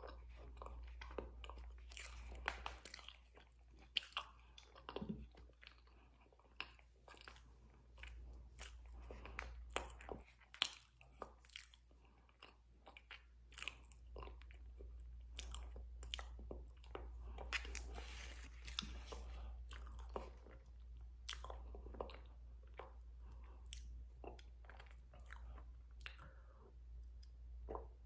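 Close-miked chewing and crunching of crunchy food eaten by the spoonful, a rapid irregular run of sharp crunches.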